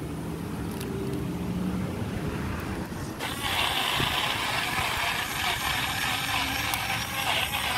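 Low traffic rumble, then about three seconds in a small portable blender starts and runs with a steady high whir, blending sea moss.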